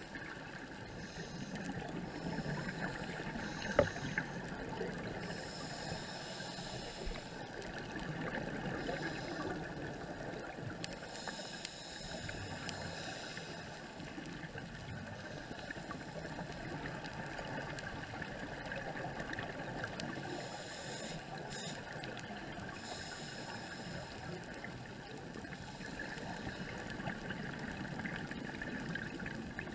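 Muffled underwater noise heard through a camera's waterproof housing on a scuba dive, with bursts of bubbling hiss from scuba exhaust bubbles coming and going every few seconds. A single sharp knock about four seconds in.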